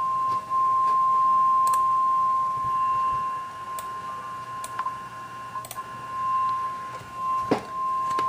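NOAA Weather Radio warning alarm tone: one long, steady, single-pitched beep at about 1050 Hz, the signal that a warning broadcast follows. A few faint clicks sound behind it.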